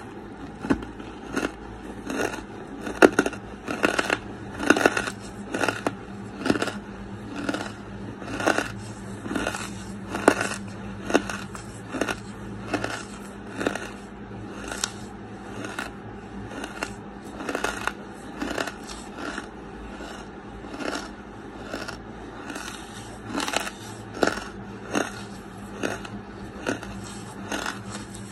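Close-miked chewing of lump charcoal: a steady run of dry, crisp crunches, about two a second, as the charcoal breaks between the teeth, over a faint steady hum.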